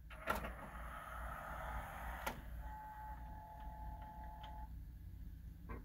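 Sony CDP-CE375 five-disc CD changer's tray mechanism opening: a click, then about two seconds of motor whirring as the tray slides out, ending in a clunk. A faint steady whine with light ticks follows, and there is one more click near the end.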